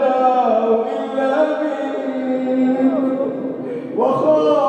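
A man's voice chanting an Arabic supplication (du'a) in a drawn-out melodic style, holding long notes; one phrase dies away and a new one rises in about four seconds in.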